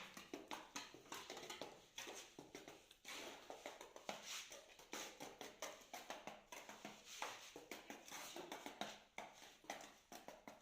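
Faint, irregular tapping and knocking as a mason beds a ceramic floor tile into wet cement paste and knocks it level.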